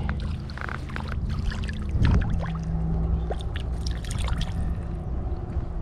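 Water splashing as a small hooked trout thrashes at the surface and is taken in by hand, with the loudest splash about two seconds in and shorter splashes and drips between.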